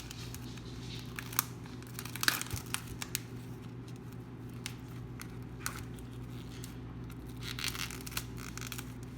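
Plastic food packaging being torn and crinkled open, in two spells of crackling with sharp clicks, over a steady low hum.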